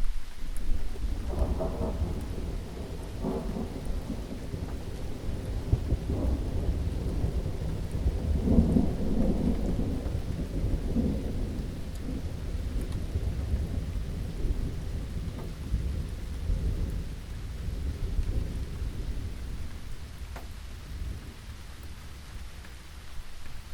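Steady rain with a long roll of thunder. The rumble comes in at the start, swells through the first half and eases off toward the end.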